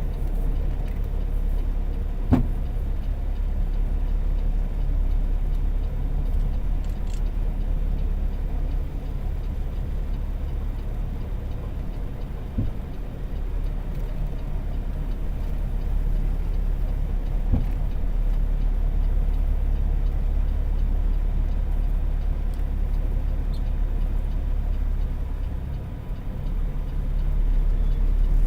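Semi truck's Cummins ISX diesel engine running, a steady low rumble with a few brief knocks.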